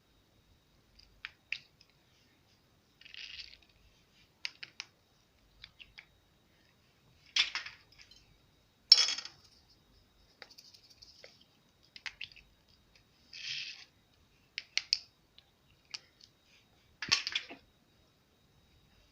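Slime being squeezed and worked by hand: scattered sticky clicks and short crackling pops at irregular intervals, with quiet gaps between them. The sharpest pop comes about nine seconds in.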